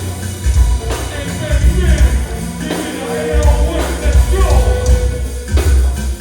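Music with a heavy bass line, a steady beat and sung vocals.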